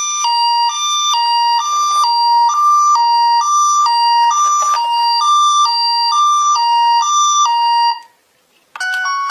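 Electronic two-tone ambulance siren, alternating hi-lo between two pitches, a little over one cycle a second. It stops about eight seconds in. After a short pause, a different set of electronic tones starts near the end.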